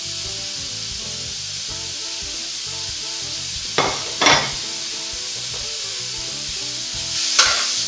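Diced guanciale and sliced vegetables frying in olive oil in a metal sauté pan on a gas range, a steady sizzle. Two sharp clatters come about four seconds in and another shortly before the end.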